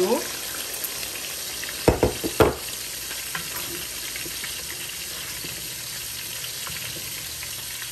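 Tomato and onion sauce sizzling steadily in a stainless steel pot as a little water is poured in and a wooden spoon stirs it. A few sharp knocks come about two seconds in.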